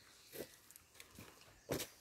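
Footsteps: two separate steps over a second apart, the second louder.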